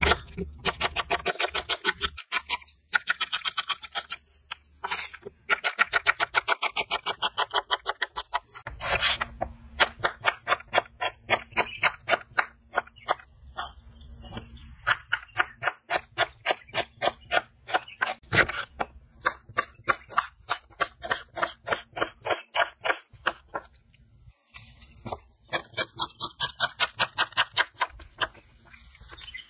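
Knife slicing red onion and tomatoes on a wooden chopping board: a long run of sharp cuts, several a second, broken by short pauses.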